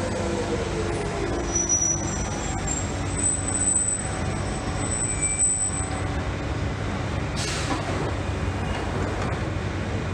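London Underground Central Line tube train braking to a stop at the platform over a steady rumble, its motor whine falling in pitch early on and a thin high brake squeal in the middle. A short sharp hiss of air comes about seven and a half seconds in as the train halts.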